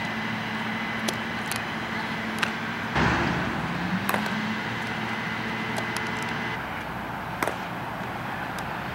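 Steady outdoor background noise like distant traffic, with a few short sharp knocks, one about four seconds in as a softball goes into a fielder's glove.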